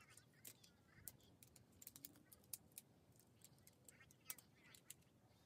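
Faint, quick, irregular clicks and taps, several a second with no steady rhythm, over quiet room tone.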